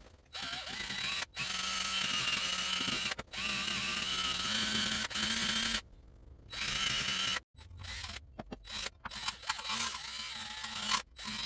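A handheld power tool whirring in several runs of one to a few seconds, stopping and restarting, with shorter choppy bursts in the second half.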